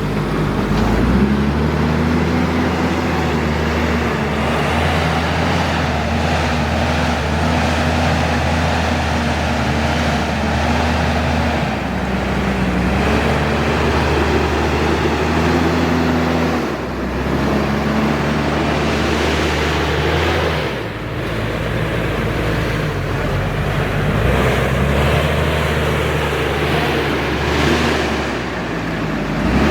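Heavy diesel engine of a JCB 432ZX Plus loader running under load, its pitch dipping and rising now and then as it works.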